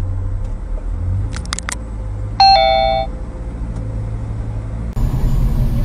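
Steady low hum of a car heard from inside the cabin. About two and a half seconds in, a loud two-note electronic chime sounds, the second note lower, like a ding-dong, lasting under a second, with a few short clicks just before it. Near the end the hum gives way abruptly to louder road noise.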